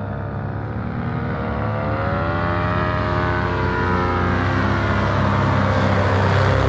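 Paramotor engine and propeller droning as a powered paraglider flies low toward the listener, getting steadily louder and peaking as it passes close near the end, with a rushing blast of propeller air at the very end.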